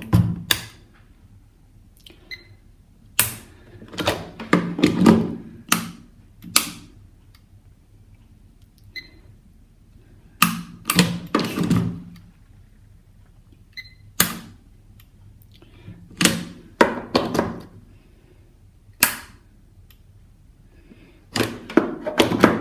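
A UK 13 A plug on a test lead being pushed into and pulled out of plastic socket outlets, with the sockets' rocker switches flicked on and off: groups of sharp clicks and knocks every few seconds.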